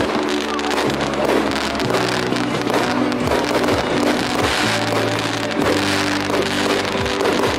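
Music with sustained, slowly changing notes plays over a fireworks display, with the crackling and popping of firework bursts going on throughout.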